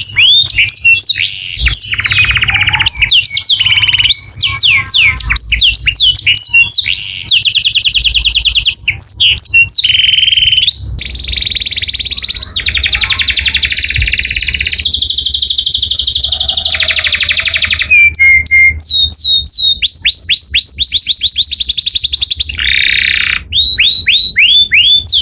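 Male canary singing a loud, unbroken song of fast trills and repeated swooping notes, switching to a new phrase every second or two.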